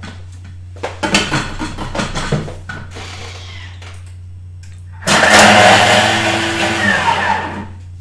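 Thermomix blade running in a short burst of about two and a half seconds, chopping onion, ginger and garlic to a coarse mince; it starts about five seconds in and stops shortly before the end. Some knocking and clatter comes before it, about a second in.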